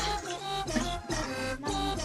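Background music with instruments and a steady beat.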